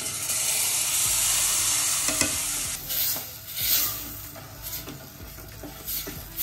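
Grated fresh tomatoes hitting a pot of hot butter-and-flour roux: a loud, steady sizzle for about three seconds, then a wooden spoon stirring through the sizzling mixture in repeated strokes as the sizzle eases.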